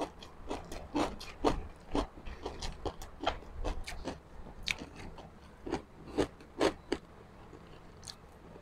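Close-up crunching and chewing of crispy fried pork chicharon: a quick, irregular run of sharp crisp crunches, a few each second.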